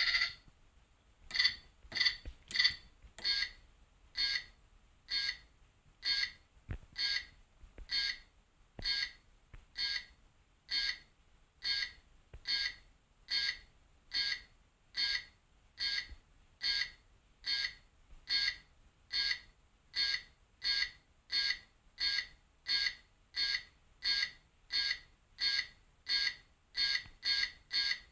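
Predator-gauntlet countdown beeping from the kit's small speaker: short electronic beeps, each with two tones an octave apart, repeating evenly and speeding up from about one a second to about two a second as the countdown runs. A longer tone sounds right at the start, as the keypad sequence is entered.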